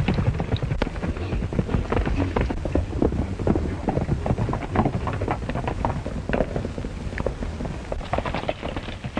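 Horses galloping over rocky ground, a fast, irregular clatter of hoofbeats over the hiss and rumble of an old film soundtrack.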